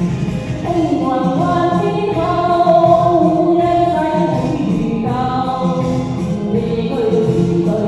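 A Cantonese pop song playing as a karaoke backing track, a melody of held notes moving step by step over a steady accompaniment.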